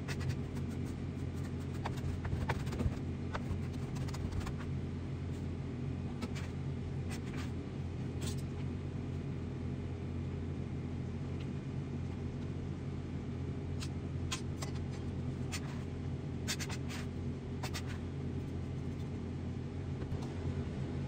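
A steady low hum with scattered light clicks and taps.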